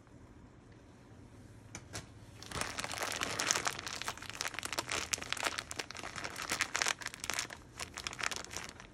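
A plastic bag of light brown sugar crinkling as it is handled and squeezed to pour the sugar out. The dense, irregular crackling starts about two and a half seconds in and stops just before the end.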